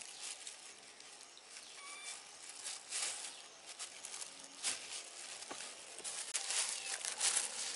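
Kitchen knife scraping the skin off a pumpkin in several short strokes, with the plastic bag under it rustling.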